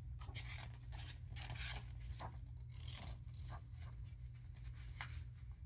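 Pages of a hardcover picture book being leafed through and turned: a run of dry paper rustles and swishes over a low steady hum.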